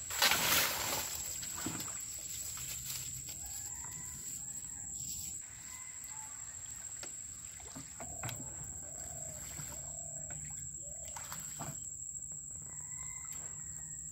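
Splashing and rustling as a bamboo fish trap is hauled out of flooded weeds into a wooden boat, loudest in a brief burst near the start. Birds call in the background, a run of short calls about two-thirds of the way through.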